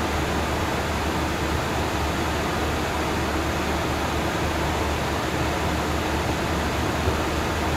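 Steady interior noise of an airliner in flight: an even rush of airflow and engine noise with a constant low hum underneath.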